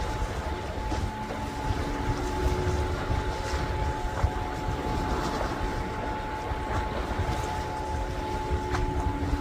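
Steady low rumble of a distant boat engine with a faint constant hum, over wind noise on the microphone.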